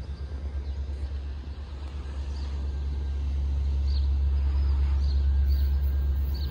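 A low steady rumble that slowly grows louder, with a few short, high bird chirps over it.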